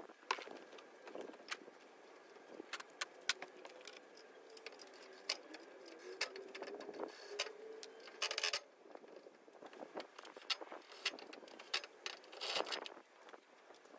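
Light metallic clinking and rattling of bolts, washers and hand tools while casters are fastened to the underside of a steel tool chest, with two short, louder rasping bursts, one near the middle and one near the end.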